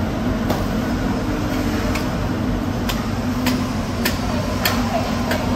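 Steady machinery hum over a constant background noise, with several sharp clicks or knocks scattered through, about one every half-second to second.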